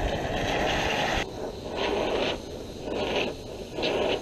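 Brazing torch flame hissing at a copper refrigerant line-set joint as it is heated for brazing. The noise swells and drops four times as the flame moves on and off the joint.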